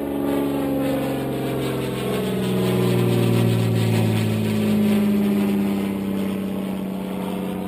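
Low-flying plane passing overhead, a loud engine drone that peaks about three to five seconds in, its pitch shifting slowly as it goes by, then fading.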